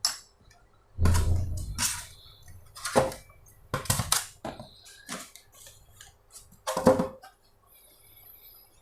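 Clinks, knocks and clatters of the unboxed mirror parts and small metal fittings being handled and set down, about eight separate hits with the loudest about a second in and near the end.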